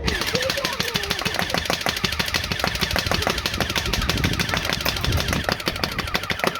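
BB gun firing in a rapid, unbroken stream of shots, many a second, with no pause between them.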